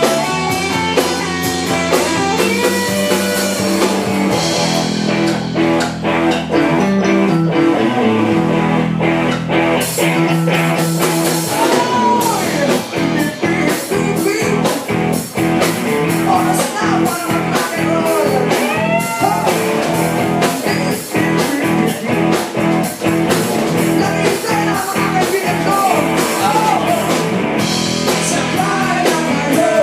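Rock band playing a song with guitar prominent and a steady drum beat.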